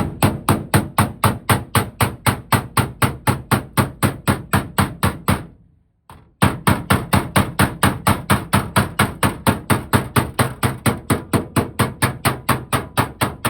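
Background music with a fast, steady beat of about four to five hits a second. It fades out about five seconds in, drops out briefly, and starts again abruptly.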